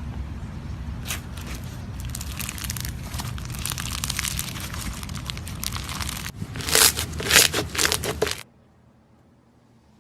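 Slime being worked by hand close to the microphone, with a dense crackle of clicks and pops; the loudest, sharpest pops come about seven to eight seconds in, then it cuts off suddenly to a faint hiss.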